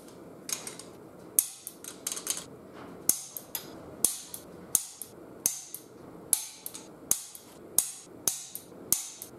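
Torque wrench tightening the diff cover bolts on a Ford 8.8 rear axle to about 20–25 ft-lb: a long series of sharp metallic clicks, often in close pairs, about two a second at the busiest, as each bolt is pulled up to torque.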